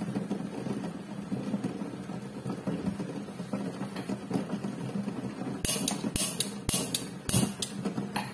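A pot of eggs boiling hard on a gas burner, bubbling steadily with the burner's low hum. From about five and a half seconds in come about six sharp metallic knocks, roughly two a second.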